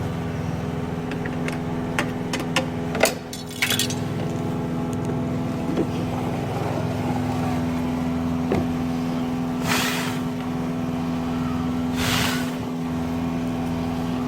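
Car running at idle with a steady hum, during an air-conditioning evaporator cleaning. A few sharp clicks come around three seconds in, and two short hissing bursts come near the middle and near the end.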